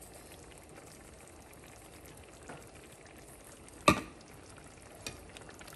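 Tomato-based beef stew simmering in a skillet on a gas stove, a faint steady bubbling and sizzling crackle. One sharp knock sounds about four seconds in.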